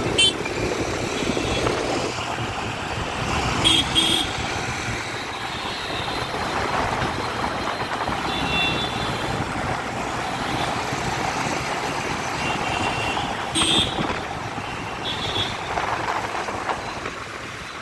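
Dense city road traffic running steadily, with several short vehicle horn toots, the loudest about four seconds in and again near fourteen seconds.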